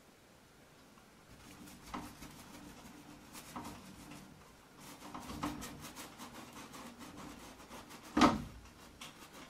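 Paintbrush dabbing and rubbing on a canvas: soft scrapes and light taps, then one sharp knock a little after eight seconds in.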